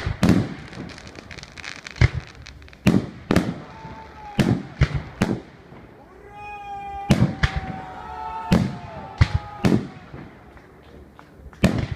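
Aerial fireworks shells bursting overhead, about a dozen sharp booms at uneven intervals, with a run of fast crackling in the first couple of seconds.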